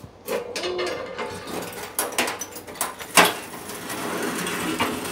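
Handling noise at a wood stove: a few sharp knocks with rustling in between, as the wooden trim strips on the stove top are handled. The loudest knock comes about three seconds in.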